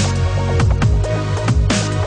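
Electronic music soundtrack with a heavy bass line and a steady beat, with a bright crash-like swell near the end.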